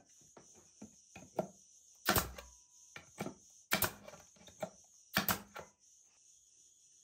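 Pneumatic brad nailer driving nails into a pine drawer box corner: several sharp clacks, some in quick pairs, between about two and five and a half seconds in, with lighter knocks of the boards being handled.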